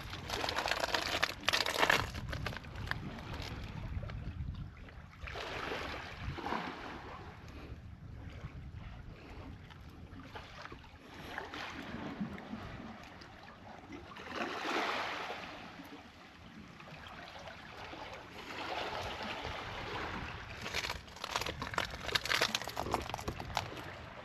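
Seaside wind and waves, swelling and fading every few seconds, with a few light clicks near the end.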